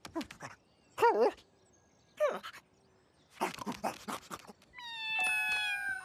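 Three short cartoon animal calls with a wavering pitch, each under half a second. A quick run of taps follows, and music comes in near the end.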